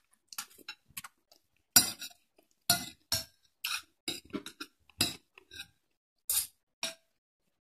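Metal spoon and fork clinking and scraping against a glass bowl of rice: about a dozen short, sharp clinks at irregular intervals, the loudest about two seconds in and again about five seconds in.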